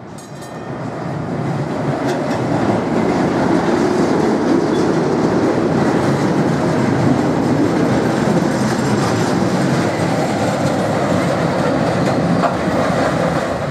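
Tram running on its rails, a steady rumble with wheel clatter that grows louder over the first couple of seconds and then holds.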